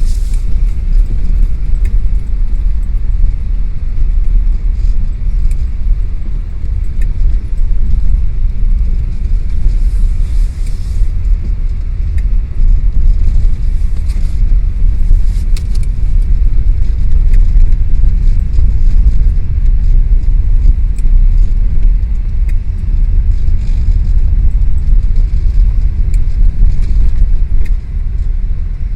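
A loud, steady low rumble, with faint light rattles now and then.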